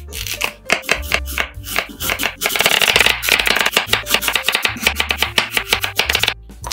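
Chef's knife slicing through a peeled Korean radish and striking a wooden cutting board: scattered cuts at first, then a fast, steady run of chops from about two and a half seconds in that stops shortly before the end. Background music plays underneath.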